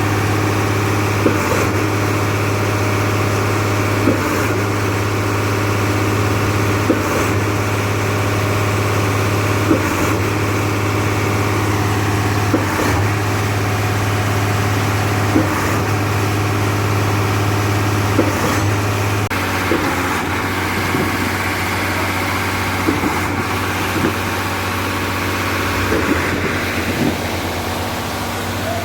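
Heavy diesel engine of concreting machinery running steadily, with a short regular knock about every three seconds. Its note shifts slightly about two-thirds of the way through.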